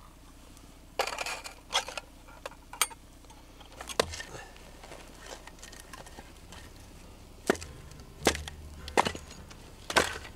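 Hatchet chopping and splitting a firewood log: a series of sharp wooden strikes, four of them in quick succession in the last few seconds.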